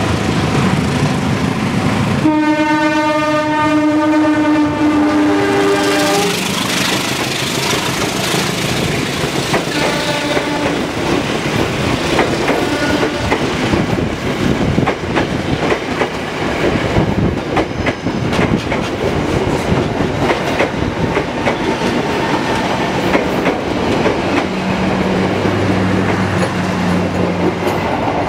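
Ex-Tokyo Metro 05 series electric commuter train sounding its horn in one long blast of about four seconds as it approaches. It then runs close past with a loud rumble and the clickety-clack of its wheels over the rail joints. Near the end a low steady hum comes in.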